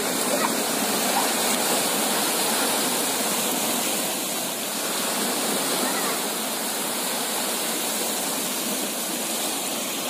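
Small sea waves breaking and surf washing over the shallows, making a steady rushing wash.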